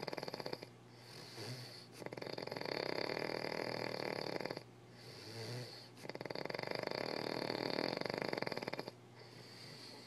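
Snoring in slow, regular breaths: three long, rough snores of about two and a half seconds each, one every four seconds or so, with quieter breaths between them.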